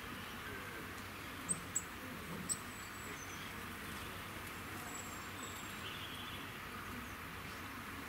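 A few short, very high bird chirps, the loudest three coming close together about one and a half to two and a half seconds in, over a steady faint hiss of outdoor background.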